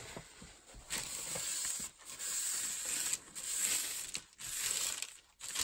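Paper towel wiped over parchment paper: about four rasping strokes, each lasting about a second, with short pauses between.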